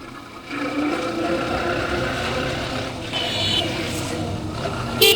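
Motorcycle riding in road traffic: steady engine and road noise that swells about half a second in, with a loud vehicle horn honking right at the end.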